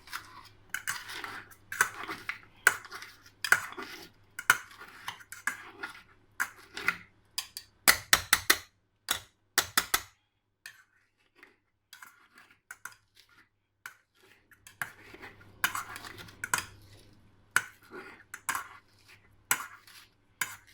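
Potato masher pounding papaya salad ingredients in a bowl, used in place of a mortar and pestle: a clattering knock about once a second, a quick flurry of sharper strikes about eight seconds in, then a pause of several seconds before the pounding starts again.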